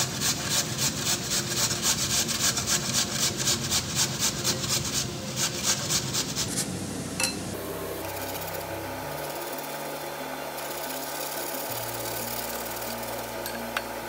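Raw potatoes rubbed on a metal box grater: rhythmic rasping strokes, about three a second, which stop about halfway through. Soft background music with held notes follows.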